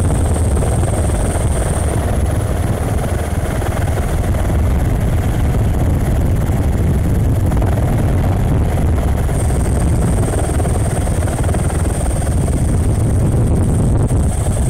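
Helicopter running steadily: a heavy, constant low rotor and engine drone with a thin high whine that drops out about two seconds in and comes back after about nine seconds.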